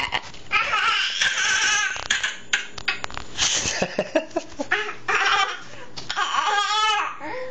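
A baby shrieking and squealing loudly in a run of high-pitched bursts, laughing and babbling between them; one long wavering squeal near the end.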